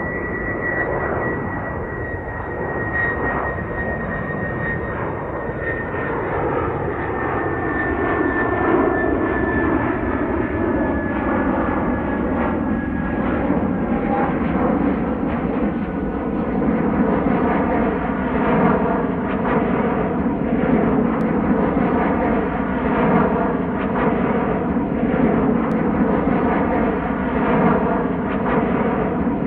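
Jet airliner passing high overhead: a continuous engine roar with a thin high whine that slowly falls in pitch over the first dozen or so seconds. Later the roar takes on a wavering, phasing quality and grows slightly louder.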